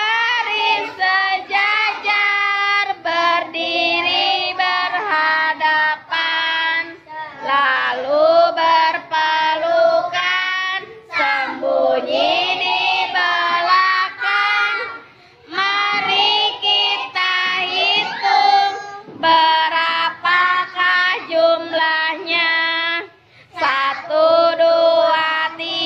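A group of young boys singing a children's action song together in phrases, with a few short breaks between lines.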